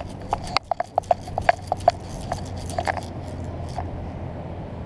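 Light irregular clicking and knocking from the gear of a camera strapped to a dog's back as the dog moves, a few clicks a second, thinning out about three seconds in, over a steady low rumble.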